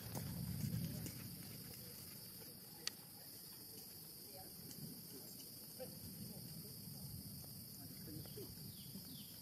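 Steady high-pitched insect chorus chirring without a break, with one sharp click about three seconds in.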